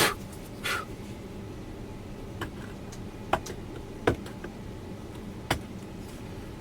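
Small metal tool work on rifle screws: a few separate sharp clicks and one brief scrape as a thin screwdriver works at gunked-up screw slots.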